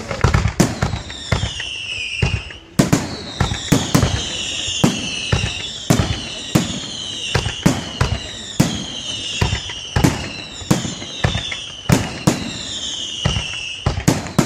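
Aerial firework shells bursting in quick succession, sharp bangs about one or two a second, with a run of whistles that fall in pitch about once a second over them.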